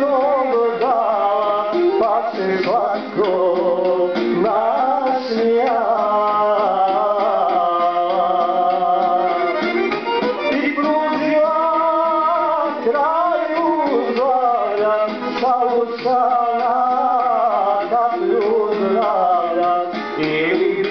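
Recorded Bosnian sevdalinka song: a male voice sings a wavering, ornamented melody over accordion accompaniment.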